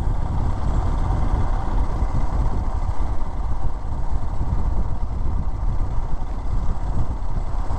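A motorcycle on the move: wind buffeting the camera microphone in a steady, fluttering low rumble over engine and road noise.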